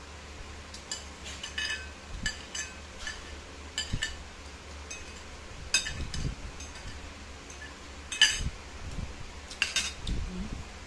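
Metal fork and spoon clinking and scraping against a ceramic plate: an irregular string of short clinks, the loudest about eight seconds in.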